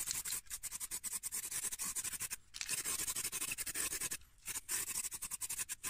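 Paintbrush scrubbing primer onto bare, sanded steel of a car's sill panel: rapid scratchy brush strokes, with two short pauses partway through.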